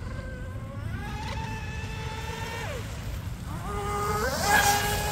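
Electric brushless motor and 36 mm, 1.9 pitch prop of a small RC mono speed boat running full-throttle laps, with a high whine. Its pitch climbs about a second in, drops near three seconds as the throttle is eased, then climbs again. It is loudest near the end, with a hiss of spray as the boat passes close.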